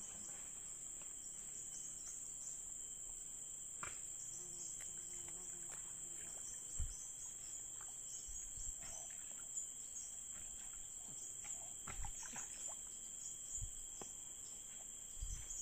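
Steady high-pitched insect chorus, crickets or cicadas, droning throughout, with scattered faint knocks and rustles from handling. A sharper knock comes just before the end.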